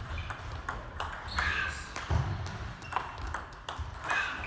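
Table tennis balls clicking off bats and bouncing on the table during forehand practice, a quick, irregular run of sharp clicks with more clicks from other tables in the hall. A few short high squeaks come in between.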